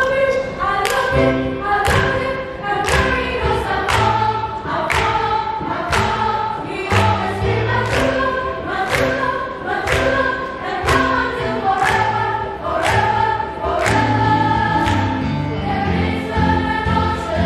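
Children's choir singing a lively song with instrumental accompaniment holding low notes underneath, and hand claps on the beat about once a second.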